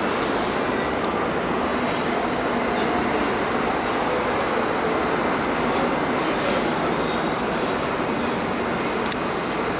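R188 subway train of the 7 line moving along the platform, its wheels on the rails and its motors making a steady running noise that neither swells nor fades.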